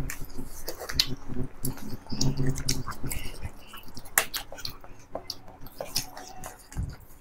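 People eating rice and chicken curry by hand: wet chewing and lip smacks, with fingers squishing and mixing rice on metal plates, heard as a string of short sharp clicks and smacks.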